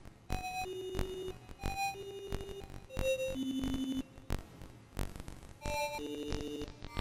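Background electronic music: short synth notes changing pitch about every half second over a light percussive beat.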